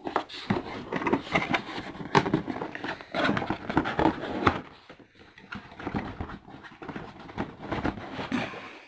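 A cardboard router box being handled and opened close to the microphone, with irregular scraping, rubbing and knocking of the packaging.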